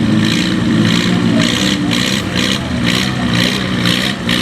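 Farm class pulling tractor's engine running hard and steady under load while pulling the sled, with a high pulsing that repeats about three times a second.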